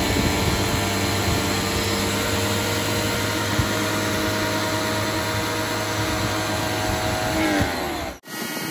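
Greenworks C30 electric pressure washer running, a steady motor and pump whine over the hiss of water spraying from the wide 65-degree black nozzle onto a car wheel. Near the end the whine falls in pitch, then the sound cuts off abruptly.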